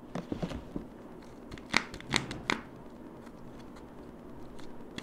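Wrapped Kinder Joy eggs clicking and knocking against one another and the plastic basket as they are handled. There is a run of sharp clicks, the three loudest close together about two seconds in.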